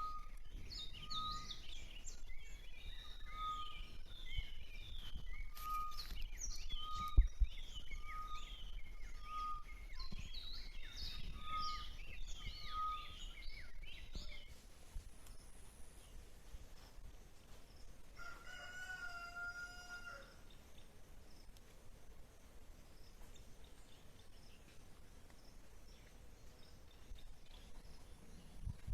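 Songbirds chirping in many overlapping calls for the first half, with one short note repeating about once a second. Later a rooster crows once, a single call about two seconds long, over a steady low background rumble.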